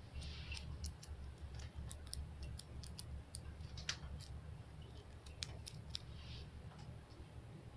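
Long natural fingernails tapping and clicking irregularly, a dozen or so sharp clicks, with a brief scratching sound near the start and again near the end, over a faint steady low hum.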